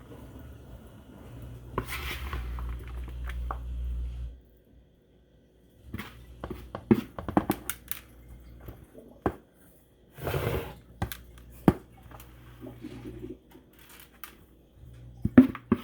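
Utensil and dish handling while chicken is spooned and spread into a casserole dish: scattered sharp taps and knocks of a spoon against the dishes, with a short scraping rustle about ten seconds in.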